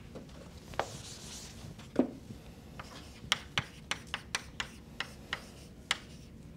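Chalk writing on a blackboard: a soft scrape about a second in, a thump at about two seconds, then a run of sharp chalk taps and short strokes, about three a second.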